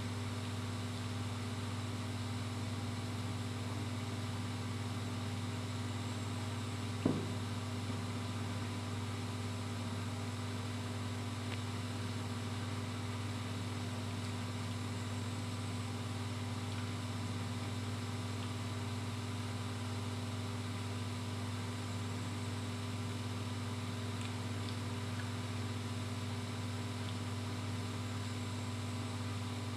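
A steady low hum with several steady tones above it, unchanging throughout, and one short click about seven seconds in.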